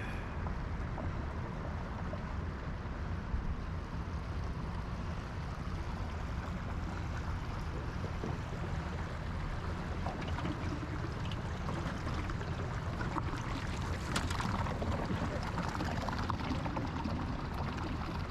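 Rushing river water with a steady low rumble underneath, and louder splashing for a few seconds from about thirteen seconds in.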